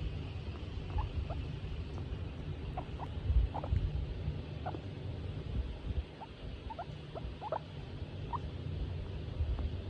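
Skinny guinea pig making a string of short, high, mostly rising squeaks over a low steady rumble, the happy vocalising of a guinea pig being stroked.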